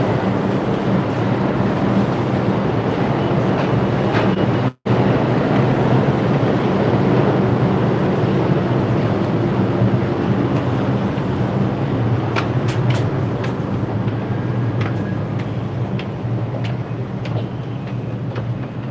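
Loud, steady rumble of a subway train and station noise heard from the exit stairs, easing slowly toward the end. The sound cuts out for an instant about five seconds in, and light clicks of footsteps on the stair treads come through in the second half.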